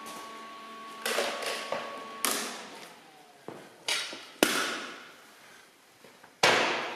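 Steel exhaust downpipe being handled and set down on a bench: a series of about six clanks and knocks, several ringing briefly, the loudest near the end. A steady hum cuts off about two seconds in.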